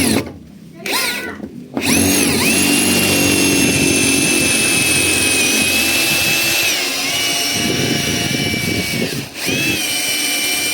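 Electric drill spinning up in a few short spurts, then running steadily with a high whine. Its pitch eases slightly about seven seconds in, and it stops for a moment near nine seconds before running on. It is being used to force out stripped, seized screws on a Daewoo washing machine's back panel.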